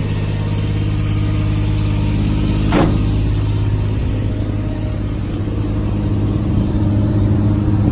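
Truck engine running steadily at a low, even speed. A single sharp knock comes about three seconds in.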